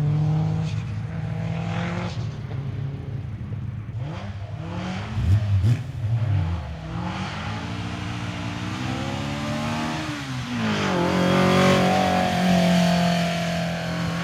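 Competition car engine revving hard up a hillclimb course, its pitch climbing through the gears, dropping sharply at a gear change about ten seconds in and climbing again. A short loud burst comes about five seconds in.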